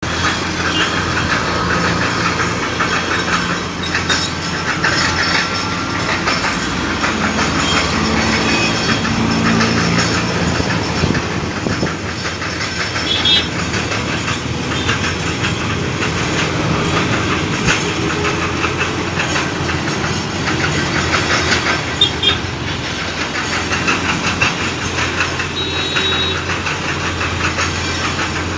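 Road traffic noise: a heavy truck pulling a low-bed trailer loaded with a tracked excavator runs along the road, with other vehicles passing. The noise is loud and continuous.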